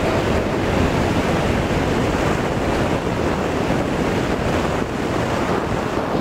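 Steady, loud wind noise from the airflow rushing over a camcorder microphone taped to a hang glider's control bar in flight.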